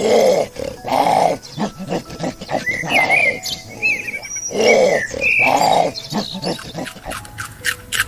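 Four loud, short animal calls in two pairs, one pair at the start and one about halfway through, with high bird chirps and scattered clicks between them.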